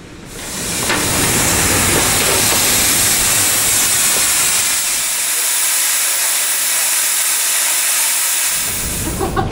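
Narrow-gauge steam locomotive letting off steam: a loud, steady hiss that starts abruptly just after the start and fades shortly before the end, with a low rumble beneath it for the first half.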